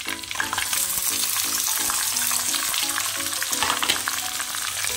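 Chopped onions dropped into hot oil in a kadhai, sizzling and frying, the sizzle swelling about half a second in as they land. A steel spoon scrapes through them as they are stirred.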